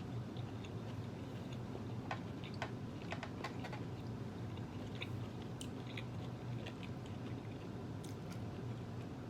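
Close-up chewing of a mouthful of food: wet mouth clicks and smacks, busiest about two to four seconds in.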